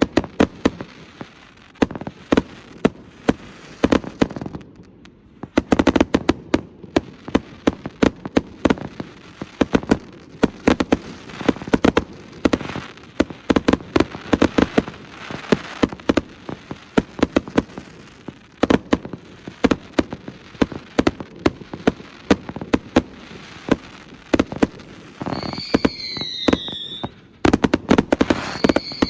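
Astroboy fireworks going off in a rapid barrage: dense sharp bangs and crackling, with a brief lull about five seconds in. Near the end, two whistles slide down in pitch over the bangs.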